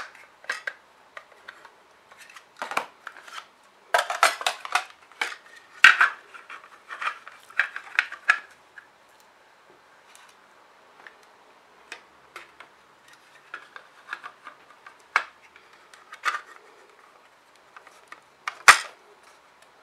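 Plastic housing and bracket of a wireless outdoor PIR motion sensor being handled and fitted together: irregular clicks, knocks and rattles, busiest in the first half, with one loud sharp click near the end.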